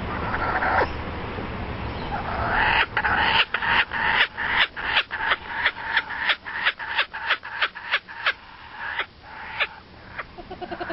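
An animal giving a rapid run of short, harsh calls, about three a second for some five seconds, then two more after a short pause.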